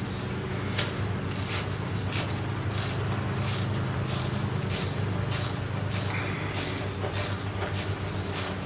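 Irregular light metallic clicks and clinks, two or three a second, from a ratchet and loosened bolts being worked at the Kohler engine's cylinder head, over a steady low hum.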